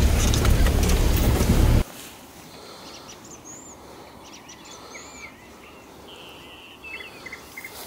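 Loud, deep vehicle noise cuts off suddenly about two seconds in. A quiet outdoor background follows, with small birds singing short, curved whistled phrases and a few quick chirps near the end.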